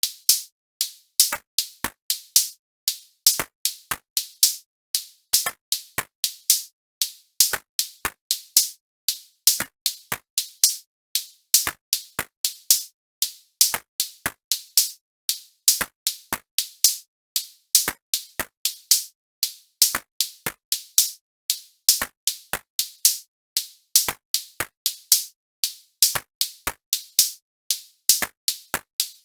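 Background music: a sparse drum-machine beat of short, sharp, bright hits, several a second, with silence between them.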